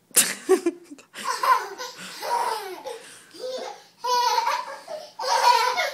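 A young child laughing and squealing in high-pitched bursts, some falling in pitch and some pulsing, with a sudden loud burst at the start.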